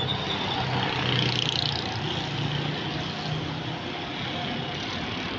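Road traffic ambience: a steady rush of noise with a low engine hum that wavers slightly.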